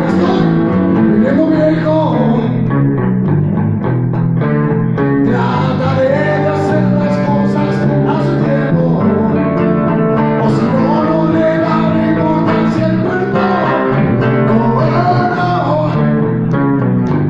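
Live acoustic-rock band playing: strummed acoustic guitar, a second guitar and an electric bass, with a voice singing a melody over them.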